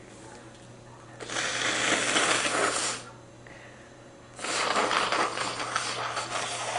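A person blowing their nose twice, each a long crackly rush of air of about two seconds, the second a little longer than the first.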